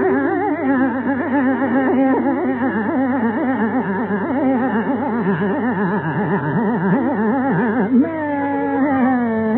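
Carnatic classical music in raga Purvikalyani: a slow, free-flowing alapana line with dense wavering gamaka ornaments from the voice and violin. About eight seconds in, a new phrase begins with a held note followed by sliding descents.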